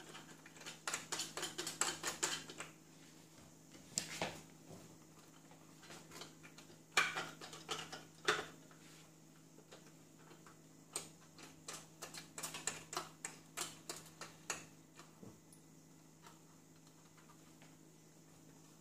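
Bursts of quick clicks and rattles of hard plastic and metal parts being handled on a Meade LX90GPS telescope's fork mount, in clusters a few seconds apart.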